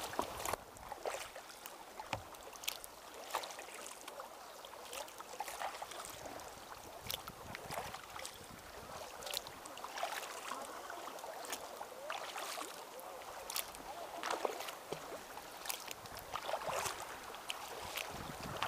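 Kayak paddles dipping and pulling through calm water: a steady run of small splashes and drips from the blades, roughly one or two strokes a second, over the lapping of water along the hull.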